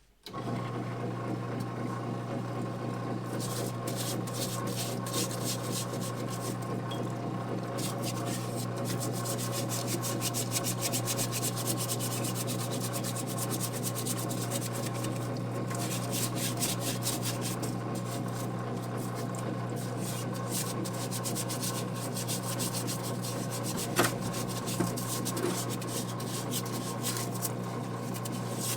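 Parts washer pump humming steadily while greasy gearbox parts are scrubbed in the solvent, a rapid rubbing and scraping over the hum, with one sharp knock about 24 seconds in.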